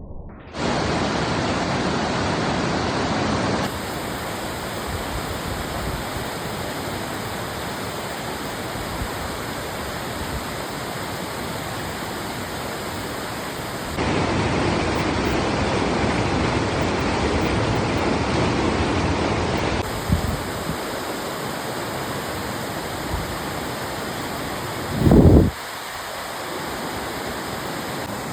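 Steady rush of river water flowing fast below a waterfall. The level jumps abruptly a few times, and a brief loud low thump comes about 25 seconds in.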